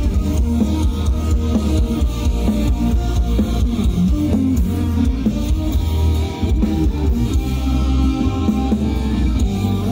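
Folk metal band playing live, with electric guitars, bass and a drum kit loud and continuous through the PA.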